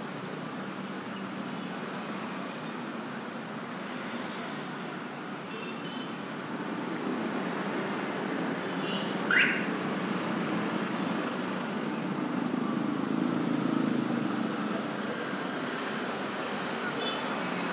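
Street traffic: motorbikes and cars passing on the road alongside, a steady rumble that swells in the second half as a louder vehicle goes by. A short rising chirp sounds about nine seconds in.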